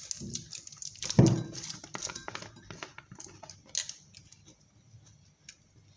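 Plastic spice jar being handled and its screw cap twisted off: a run of small clicks and scrapes, with one louder thump about a second in, then fading to quiet handling.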